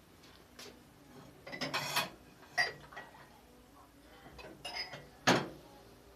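Kitchenware being handled: dishes and utensils clinking and knocking in a scattered string of sharp clinks, with the loudest knock about five seconds in.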